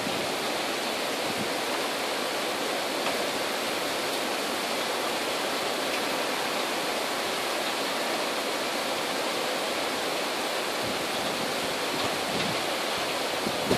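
Heavy rain falling steadily: an even, unbroken hiss of a downpour.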